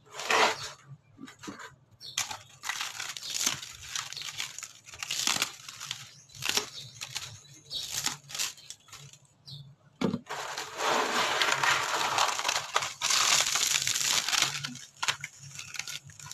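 Old ceiling board being torn and broken apart by hand: irregular crackling and tearing bursts that become thicker and almost continuous in the second half.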